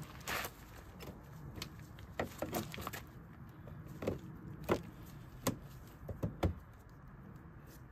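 Plastic trim clicking and knocking as a fog lamp surround is pushed and fitted into a Ford Kuga's front bumper: a dozen or so irregular sharp taps over a faint low hum.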